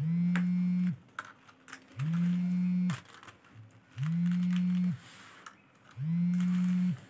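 Faceted beads clicking softly as hands thread and handle the beadwork. Over it, a steady low hum sounds four times, each about a second long and about two seconds apart.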